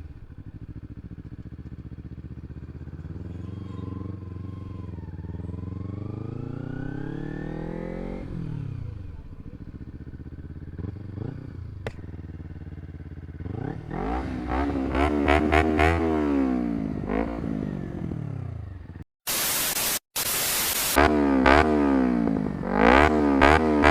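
Kawasaki Ninja 250R's parallel-twin engine through a slip-on exhaust with the dB killer removed, on the move: the revs climb and fall through gear changes, then past the halfway mark the throttle is blipped rapidly up and down, louder. A short burst of loud hiss, broken by two brief dropouts, comes near the end.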